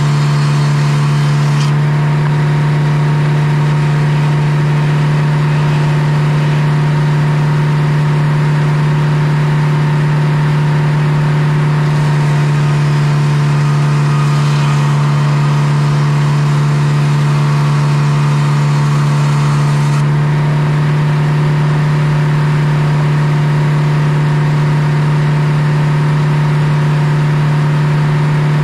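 Circular sawmill running: a loud, steady low hum from the power unit and the spinning head saw as it saws boards from a big poplar log. The higher noise of the mill changes about two seconds in and again around twenty seconds in.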